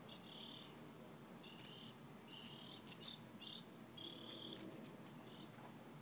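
Faint insect chirping: a string of short, high buzzy chirps, about seven of them, irregularly spaced, over near-quiet background.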